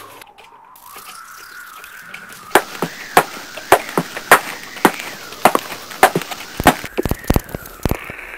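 A tone wavering slowly up and down. About two and a half seconds in it is joined by sharp clicks at a steady pace of a little under two a second.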